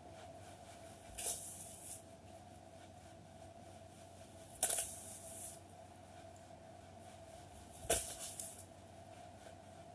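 Three short bursts of rustling, each with a sudden start, about three seconds apart, the last with a soft thump: a seated person shaking her body up and down on a yoga mat while holding her breath. A faint steady hum runs underneath.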